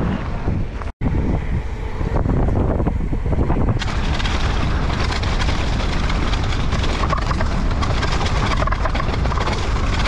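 Downhill mountain bike riding fast down a dirt trail: tyres rumbling and crunching over dirt and loose stones, the bike rattling and knocking over bumps, with wind buffeting the microphone. The sound cuts out for an instant about a second in, and the rattle grows denser and brighter from about four seconds in.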